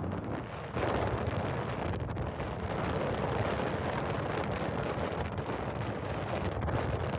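Strong gusty wind buffeting the microphone, a dense steady rush and rumble that jumps louder about a second in.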